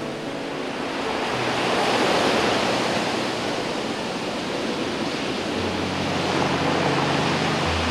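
Heavy storm surf breaking and washing up over a cobble beach, a steady rushing that swells about two seconds in and again near the end.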